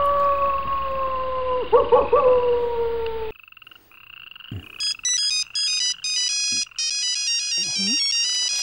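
A steady humming drone, slowly falling in pitch, cuts off about three seconds in. From about five seconds in, a mobile phone plays an electronic ringtone melody of short, bright beeping notes in repeated phrases.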